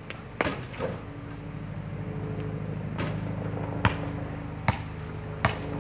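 A basketball striking the hoop and bouncing on asphalt, several sharp thuds spaced about a second apart. Under them a steady engine hum sets in about a second in and grows louder.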